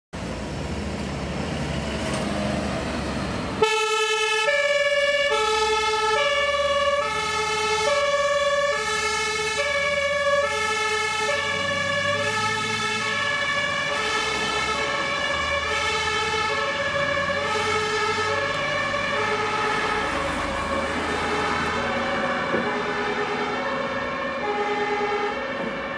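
Dutch fire engine's two-tone siren, stepping back and forth between a lower and a higher note, each held for under a second. It cuts in suddenly a few seconds in after engine and road noise, and fades a little near the end.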